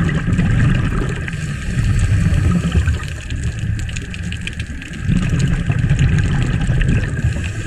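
Scuba diver's exhaled regulator bubbles, heard as a muffled low rumble through the underwater camera, in two long surges with a pause between. Faint clicks and crackle from the water run underneath.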